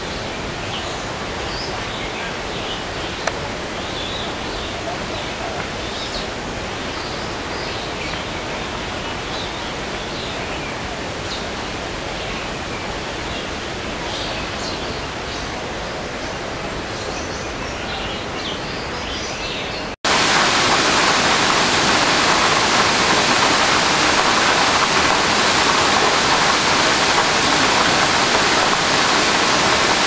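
Many short high bird chirps scattered over a steady rushing noise. About two-thirds through the sound cuts abruptly to a louder, even rush with the chirps buried in it.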